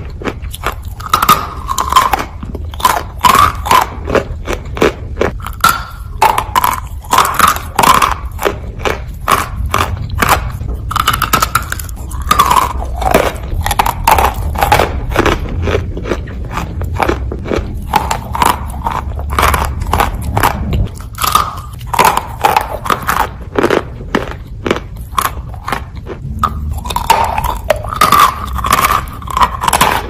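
Mouth biting and chewing dry chunks of Turkistan white edible clay: a steady stream of loud, sharp crunches, several a second.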